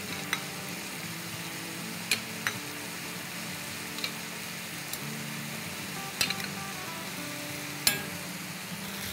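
Chicken strips sizzling steadily as they fry in oil in a hot pan, with several sharp clinks of a metal spoon against a small steel saucepan and a plate as jalapeños are lifted out of oil.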